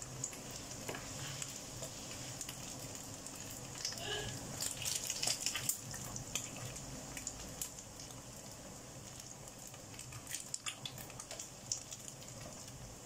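Flying fish deep-frying in a wok of hot oil, being fried until crisp: a steady sizzle with scattered pops and crackles, busiest about four to six seconds in.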